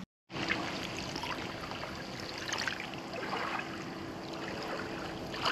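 Small lake waves lapping and splashing irregularly against a grassy shore, over a faint steady hum.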